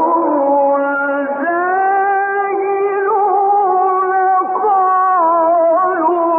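A male reciter chanting the Quran in the melodic Egyptian tajweed style, holding long ornamented notes that bend slowly, with a step up in pitch about a second and a half in. The recording has no treble above about 3 kHz, so it sounds dull and muffled.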